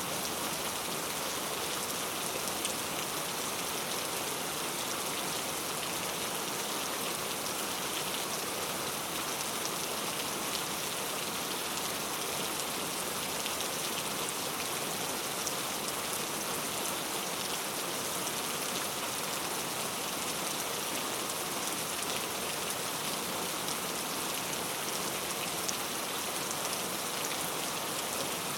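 Steady rain falling on a surface, an even hiss with fine patter of individual drops.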